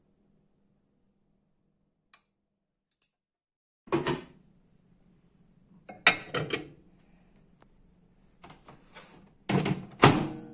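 Kitchen handling sounds: two faint clicks, then three bouts of thuds and clatter a couple of seconds apart, fitting a microwave oven's door and a dish being handled. A low hum starts right at the end.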